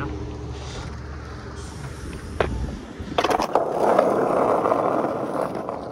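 Skateboard wheels rolling over rough concrete, starting about three seconds in with a few sharp clacks as the board is stepped on and ridden; before that, a low rumble of traffic.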